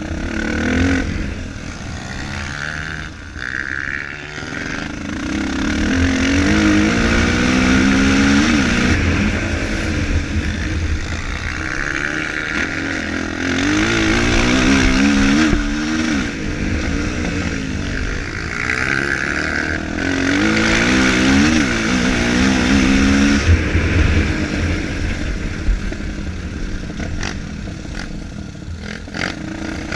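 Four-stroke single-cylinder dirt bike engine revving hard, its pitch climbing and dropping again and again as it shifts up through the gears and backs off. It grows louder and fades several times as the bike passes.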